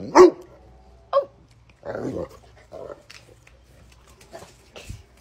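A large dog gives one loud bark at the start, followed by shorter, quieter growls and grumbles while two dogs tussle in play.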